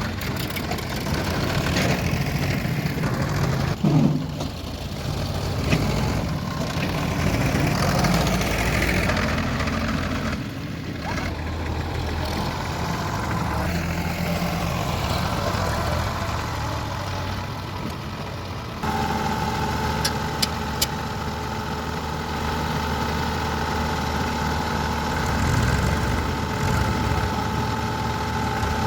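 Diesel engines of a backhoe loader and tractors running, the engine note rising and falling as the machines work. About two-thirds of the way through the sound changes abruptly to a steadier engine hum with a thin whine over it, and two sharp clicks follow shortly after.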